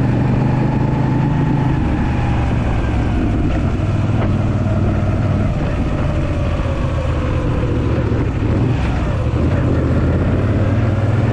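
Moto Guzzi V7 III Racer's air-cooled transverse V-twin running under way. The engine note drops about two seconds in and rises again near the end as the revs change.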